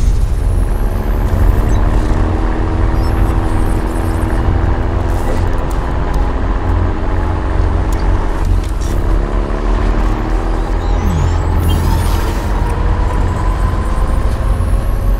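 Heavy mining haul-truck diesel engine running with a deep, steady rumble, its pitch climbing slowly in the second half as the truck drives.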